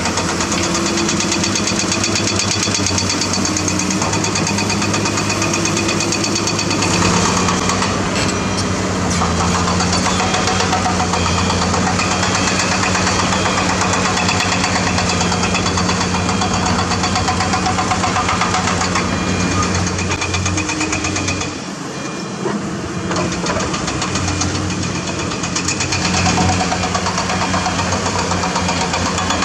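Diesel engine of a Zoomlion ZE490EK-10 ripper excavator running under load while it works its ripper through limestone. The engine note steps up about seven seconds in, dips briefly about two-thirds of the way through, and picks up again near the end.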